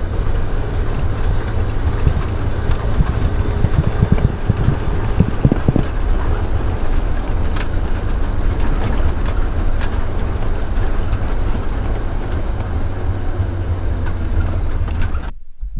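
Toyota Land Cruiser FJ55 driving over a rough, washboarded dirt road, heard from inside the cab: a steady low engine and road rumble with frequent knocks and rattles as the truck jolts. It cuts off abruptly near the end.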